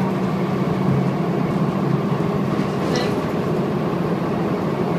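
Volvo B7TL double-decker bus running on the road, heard from inside the saloon: a steady low engine and drivetrain drone with a faint steady whine above it, and a brief high squeak about three seconds in.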